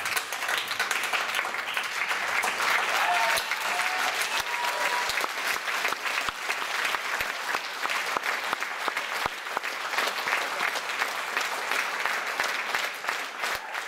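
Audience applauding, with a few short cheers about three seconds in.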